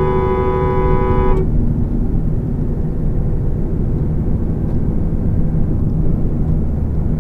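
A two-tone car horn held in a long blast that cuts off about a second and a half in, followed by steady road and engine noise from a car driving at freeway speed.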